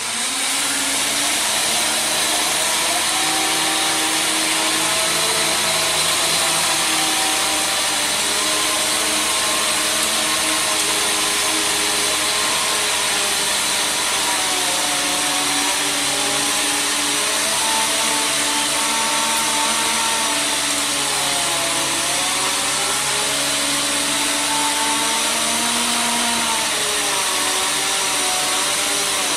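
Truck-mounted Link-Belt crane running steadily with its boom in a fallen tree, its engine and hydraulics giving a whine that slowly rises and falls in pitch.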